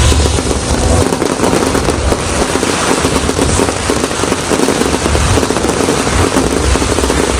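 Fireworks going off in a dense, continuous crackle of many small bursts, with deep rumbling booms at times.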